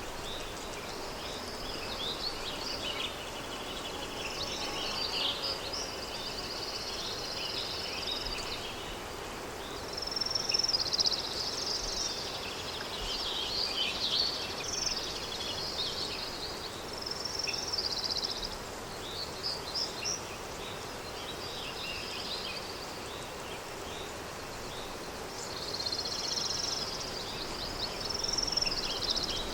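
Countryside daytime ambience: birds chirping and trilling in repeated short phrases over a steady soft background hiss of wind.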